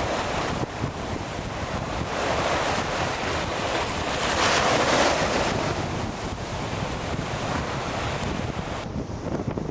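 Wind rushing over the microphone with waves and water sloshing on open water, swelling about halfway through; the high hiss drops away near the end.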